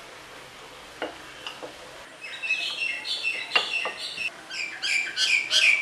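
A bird singing a quick run of varied high chirps and whistles, starting about two seconds in and growing louder toward the end. Under it are a few soft knocks of a wooden rolling pin on a stone counter.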